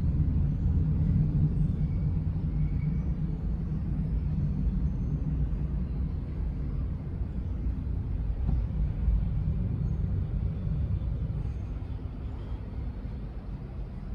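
Jet airliner's engines on take-off, heard as a deep rumble that slowly fades away.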